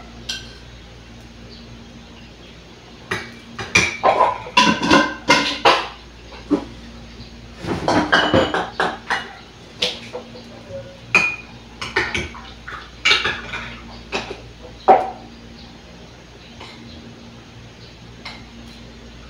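Kitchenware clattering as containers, cups and utensils are handled at a counter: irregular clinks and knocks in bunches through the middle, over a steady low hum.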